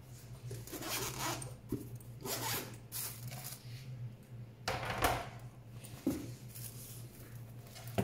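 Zipper of the 1Zpresso K-Plus grinder's carrying case being pulled open in several separate strokes.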